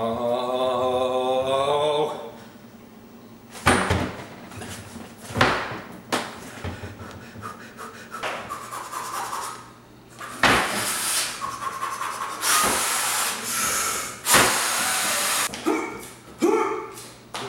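A man groaning and panting with effort as he strains to pull his stuck hand free: a drawn-out groan for the first two seconds, then short breathy grunts and heavy breaths.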